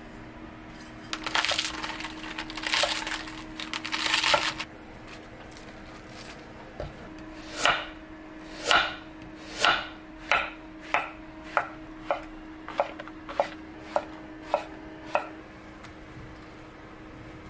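A kitchen knife slicing a carrot on a wooden cutting board: about a dozen sharp knocks, the first few slow, then quickening to a steady rhythm of under a second apart. A few seconds of noisy handling sound come before the cuts.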